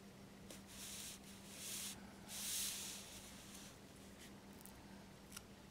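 Soft rubbing and brushing as hands handle a porcelain basket on a cloth-covered bench: three brief swishes in the first three seconds and a couple of light clicks, over a faint steady hum.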